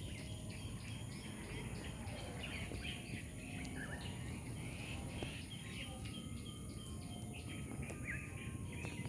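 Faint outdoor ambience of birds chirping in short, repeated calls over a steady high-pitched hum.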